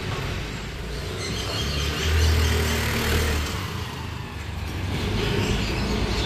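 Street traffic: a low vehicle engine rumble that swells about two seconds in and then eases off.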